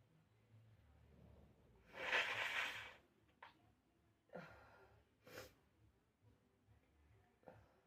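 A sneeze about two seconds in, one loud burst lasting about a second, followed by three shorter, fainter bursts of breath.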